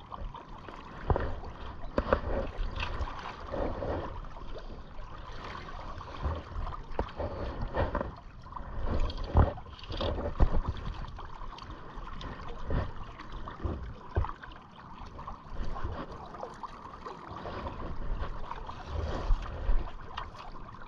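River water lapping and sloshing close to the microphone around a wading angler, irregular, in uneven swells.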